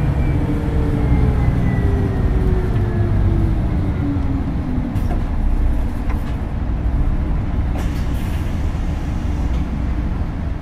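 Hino Blue Ribbon City hybrid bus running, a steady low rumble with a whine that falls in pitch over the first few seconds as the bus slows. A few faint ticks come in the middle.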